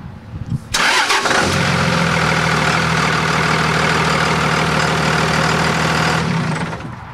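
Dodge Ram pickup's Cummins inline-six turbodiesel cranking briefly and catching about a second and a half in, then idling steadily. The sound dies away shortly before the end.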